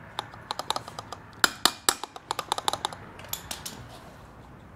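Hand tools clicking and clinking against metal engine parts during disassembly: a quick, irregular run of sharp clicks for about three and a half seconds, then fading to faint background.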